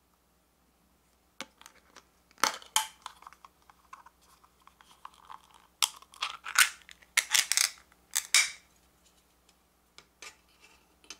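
Easy-open pull-tab lid of a small food tin being opened: a couple of sharp metallic clicks as the ring is lifted, then a quick run of loud snapping and tearing as the seal breaks and the lid peels away, with a few lighter clicks near the end.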